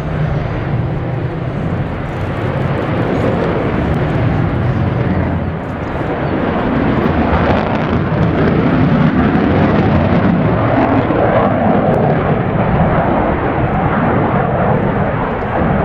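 Mitsubishi F-15J Eagle fighter jet's twin engines heard as it flies a display manoeuvre overhead. The jet noise is a steady, loud rushing rumble that dips briefly about five seconds in, then grows louder.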